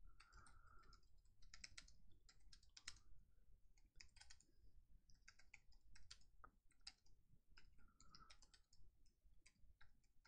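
Faint typing on a computer keyboard: quick, irregular key clicks as a sentence is typed.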